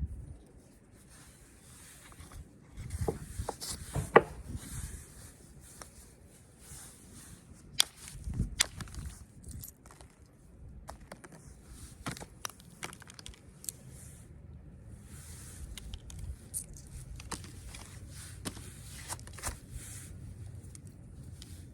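Flint knapping by hand: sharp clicks and ticks of a tool against the stone, with scratchy scraping between them as the edge is worked. The loudest clicks come about 4 and 8 seconds in.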